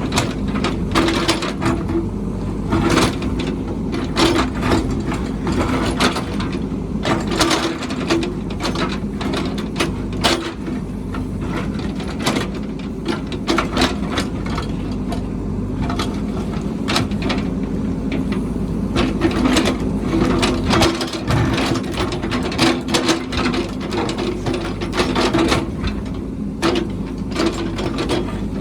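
Heavy construction machine's diesel engine running steadily, with frequent sharp metallic clanks and knocks from the working machine.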